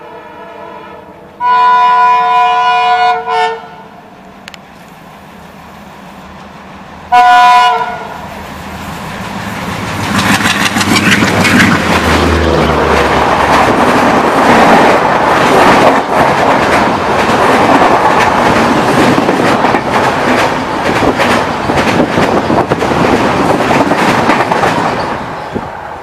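Twin WDM3D diesel locomotives sounding their horn, a long blast and then a short one a few seconds later. The locomotives then pass close with a rising, heavy diesel rumble, followed by the coaches of the express rushing past with steady wheel clatter that falls away near the end.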